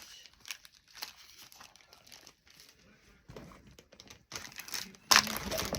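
Packaging crinkling and rustling as small craft items and sticker sheets are handled, faint and scattered at first, then a loud burst of crinkling near the end.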